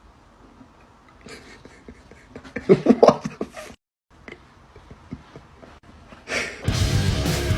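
Breathy, snuffling sounds build to a loud, pitched, voice-like cry about three seconds in, then the sound cuts off abruptly. Near the end, loud rock music with electric guitar starts.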